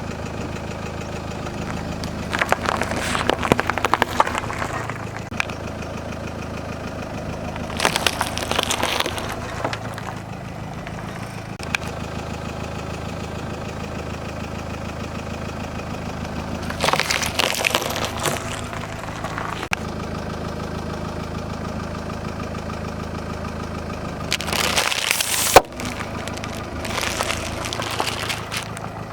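Car engine idling steadily while a tyre rolls over objects and crushes them: four bursts of crunching and crackling, the last ending in a sharp snap.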